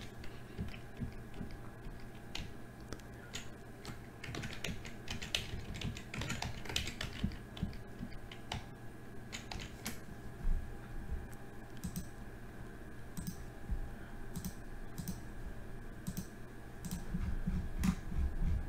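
Irregular clicking of a computer keyboard and mouse, over a faint steady hum.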